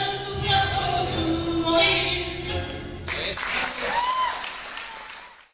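The closing bars of a tango accompaniment on held notes, then audience applause breaking out suddenly about three seconds in, with a voice calling out over it; the applause fades out near the end.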